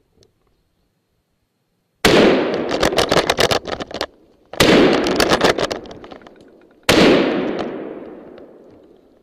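Three loud rifle shots about two and a half seconds apart, each starting suddenly and ringing out for a second or two. The first is followed by a rapid stutter of further sharp cracks.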